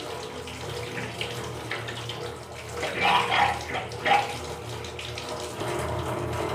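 Water running from a wall tap into a stainless steel sink while hands are rubbed and rinsed under the stream, with louder splashing about three seconds in and again about a second later.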